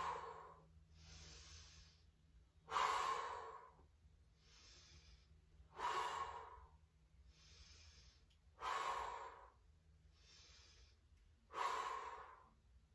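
A woman breathing hard with each rep of twisting crunches: a strong breath out about every three seconds as she twists, with a softer breath in between each one.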